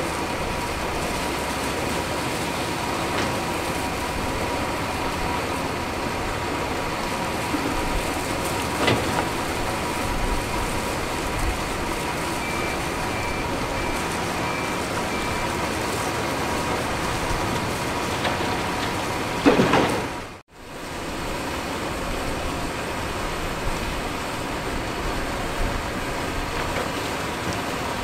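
Heavy construction machinery, a Caterpillar 329E crawler excavator working at a dump truck, running steadily with a few short knocks and a brief run of high beeps in the middle. The sound cuts out suddenly about two-thirds through, then steady machine noise resumes.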